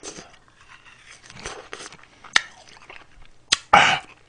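A person chewing a frozen strawberry and ice cream close to the microphone: soft crunching and wet mouth clicks, with a sharp click about two seconds in and a louder crunchy burst near the end.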